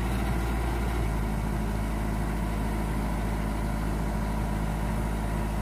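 Hitachi crawler excavator's diesel engine running steadily, its note shifting slightly about a second in.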